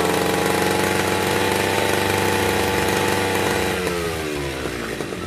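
Stihl backpack brush cutter's two-stroke engine running at high revs; about three and a half seconds in, the revs drop away and the pitch falls toward idle.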